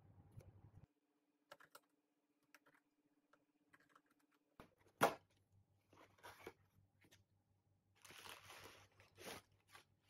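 Parcel being unpacked by hand: scattered light taps and rustles of cardboard and tape, a sharp snap about five seconds in, then crinkling plastic bubble wrap being pulled out near the end.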